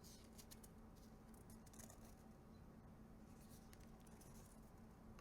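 Near silence, with faint clicks and soft swishes of tarot cards being handled and slid one over another.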